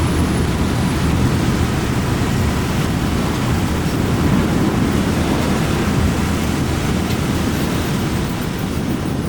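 Steady low rumbling noise with hiss above it, easing slightly near the end.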